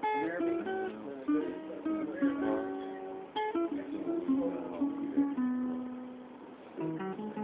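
Guitar being played, single picked notes and chords ringing out several times a second between the sung lines of a song.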